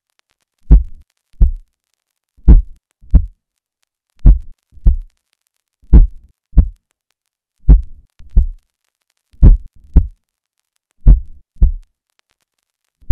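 Slow, heavy double thumps in a heartbeat rhythm, seven pairs about a second and three quarters apart, with silence between them.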